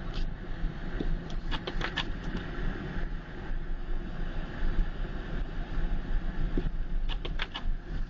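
Car driving on a snow-covered road in a blizzard: a steady low rumble of engine and tyres, with two short clusters of sharp clicks or ticks, one about a second or two in and one near the end.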